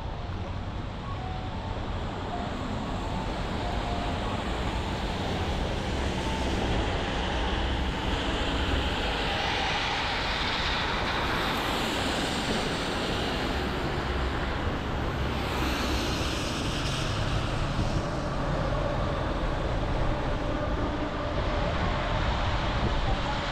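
City traffic noise: a steady low rumble, with a passing vehicle's hiss swelling through the middle and fading again.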